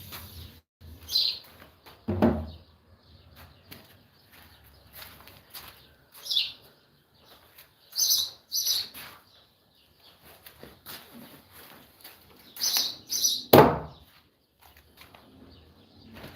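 Short high bird chirps, single and in pairs, with two sharp knocks, the second near the end being the loudest.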